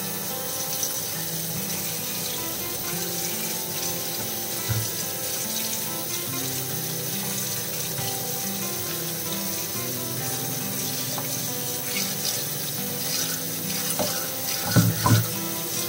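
Kitchen tap running steadily, the stream splashing into a stainless steel sink and a plastic colander as okra is rinsed under it. A few sharp knocks break in, a pair of louder ones just before the end.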